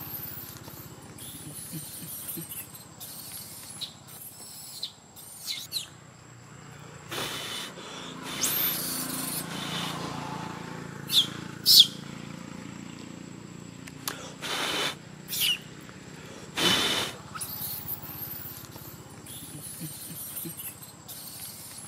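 Infant macaque crying: short, high-pitched squeals that slide in pitch, repeated many times, the loudest pair about eleven seconds in. A few brief rustling bursts fall between them.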